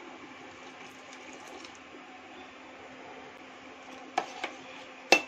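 Milk poured into a steel pot of boiling tea water, the liquid bubbling and splashing steadily. About four seconds in, a stirring spoon clinks twice against the steel pot, and there is a louder metal clank at the very end.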